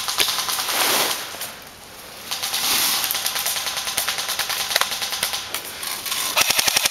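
Airsoft electric rifle firing rapid full-auto bursts, a fast string of sharp clicks with a short pause about a second and a half in.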